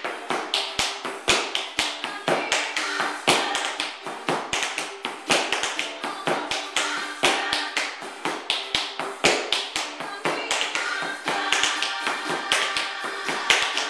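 Tap shoes striking a hardwood floor in quick, rhythmic runs of sharp taps as a tap combination is danced, with music playing underneath.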